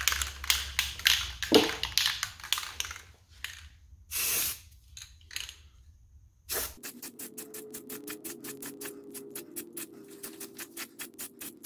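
Aerosol can of spray primer: the can is shaken so its mixing ball rattles, with a short spray hiss about four seconds in. It is then shaken again for several seconds, a rapid, even rattle.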